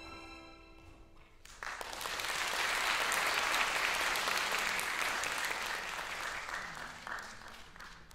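Audience applauding at the end of a piece: the clapping breaks out about a second and a half in, just after the last held notes die away, swells, then tapers off near the end.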